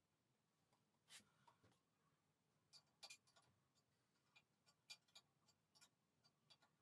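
Near silence with faint, irregular small clicks and taps, a dozen or so scattered through it.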